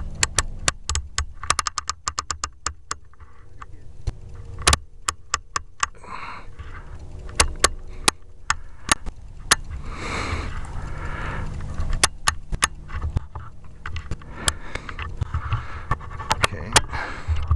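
Handling of a scoped air rifle: a quick, even run of small clicks about a second in, then scattered sharp clicks and knocks as the rifle and scope are moved.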